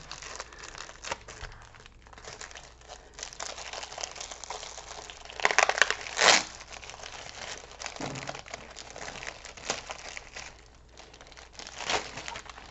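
Clear plastic packaging of a small diamond painting kit crinkling as it is handled and torn open, with a louder stretch of crinkling about halfway through and a shorter one near the end.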